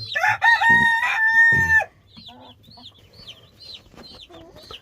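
A rooster crows once, loudly, ending in a long held note that stops just under two seconds in. Chicks peep steadily throughout in short high chirps.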